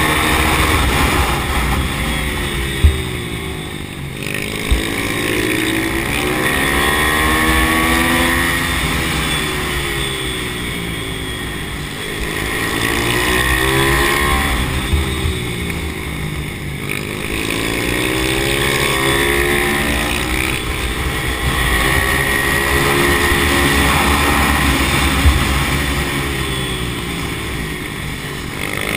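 Pit bike's single-cylinder four-stroke engine heard from on board, revving up along each short straight and dropping back for each corner, over and over. A couple of short knocks stand out a few seconds in.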